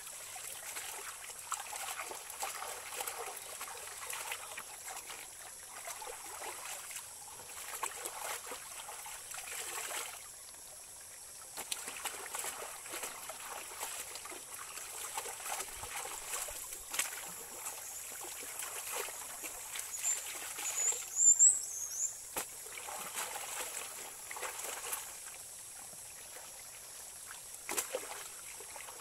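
Clothes being dipped, swished and wrung out by hand in a shallow, rocky stream: uneven splashing and water dripping from the cloth over the stream's running trickle. A few short high chirps come about three quarters of the way through.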